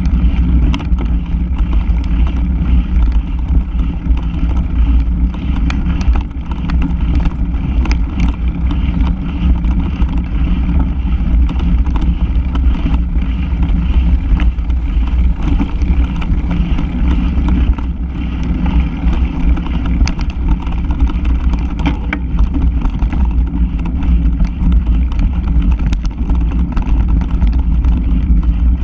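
Mountain bike ridden over a leaf-covered dirt track, heard from a camera mounted on the bike: steady low wind buffeting and tyre rumble, with frequent small clicks and rattles from bumps.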